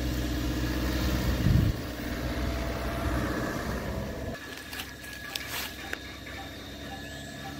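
A small sedan's engine running at low speed as the car drives slowly over dirt ground, with a brief low thump about a second and a half in. The engine hum drops away suddenly a little past halfway, leaving fainter outdoor hiss with a few clicks.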